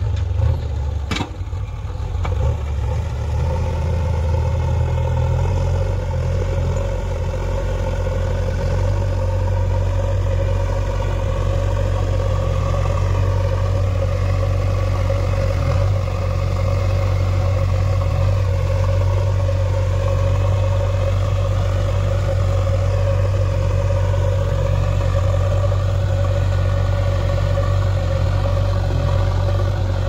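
JCB 3DX backhoe loader's diesel engine running steadily as the front loader bucket pushes and levels soil, with one sharp knock about a second in.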